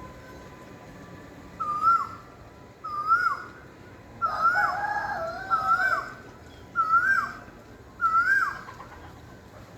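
A bird gives a series of six short calls, each rising then dropping sharply, about one every second and a quarter. A second, lower and longer call overlaps them in the middle.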